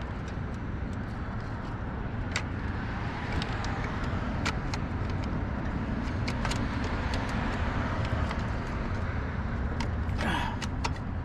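Steady low rumble of vehicle noise with scattered light metallic clicks and clinks of tools and jumper-cable clamps being worked around a motorcycle battery, and a short brighter sound about ten seconds in.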